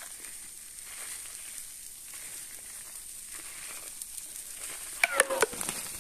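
Frying-pan sizzle under a lavash round filled with fried minced meat and grated cheese, a steady hiss. About five seconds in, a quick cluster of sharp clicks and crinkles rises over it.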